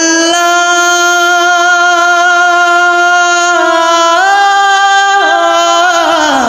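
A singer holding one long drawn-out note in a Bengali devotional song. The pitch steps up about four seconds in, wavers briefly, and slides down at the end.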